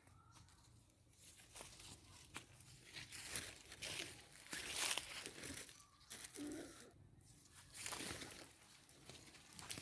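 Rustling, crunching handling noise of dry material in uneven bursts, loudest about five seconds in.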